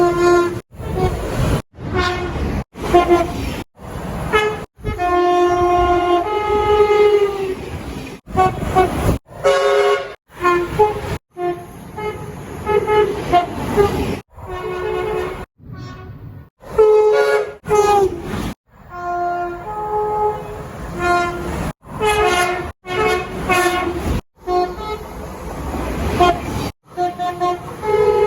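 A rapid series of train horn blasts, more than a dozen short clips cut hard one after another. Each horn sounds several notes at once and holds them for one to a few seconds, with the longest blast about three seconds.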